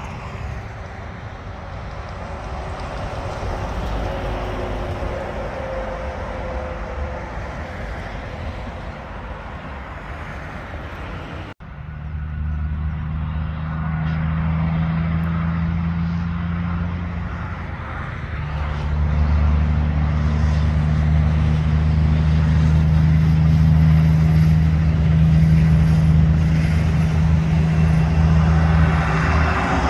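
Heavy trucks driving past on a highway: a rush of tyre and engine noise that swells and fades, then, after an abrupt cut, a steady low truck-engine drone that grows louder as a container truck passes near the end.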